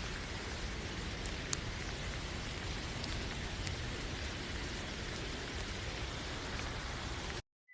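Steady hiss of rain with a few faint drop ticks, cutting off abruptly near the end.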